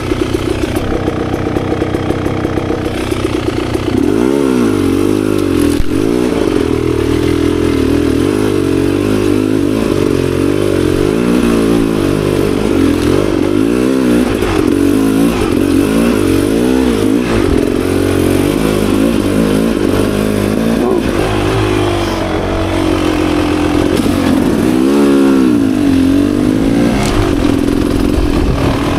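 Beta Xtrainer 300 two-stroke dirt bike engine being ridden, running fairly steadily for the first few seconds and then revving up and down over and over as the throttle is worked.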